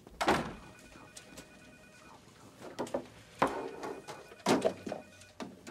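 A few sharp knocks and clatters, the loudest three coming a second or more apart, each with a short ringing tail, over a faint steady high tone.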